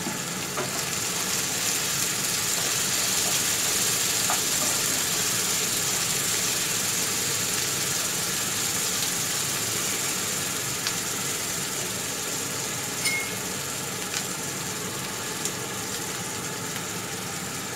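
Chopped onion, capsicum and green chilli sizzling steadily in hot oil in a non-stick frying pan, stirred with a wooden spatula, with a few light knocks of the spatula on the pan near the end.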